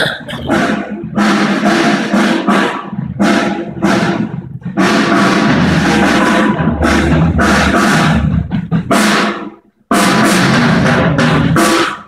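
Loud music carried by a drum kit, with drum hits and cymbals. It breaks off almost ten seconds in, starts again a moment later and stops abruptly just before the end.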